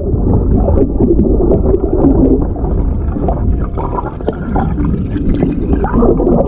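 Water poured from a plastic bottle into a clear plastic tub, gurgling and splashing, heard through a camera lying under the water at the bottom of the tub.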